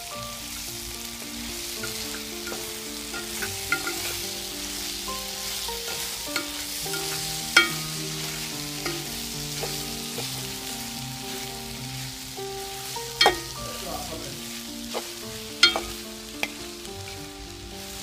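Sausage and melting cheese sizzling in a frying pan as it is stirred, with a few sharp knocks of the utensil against the pan.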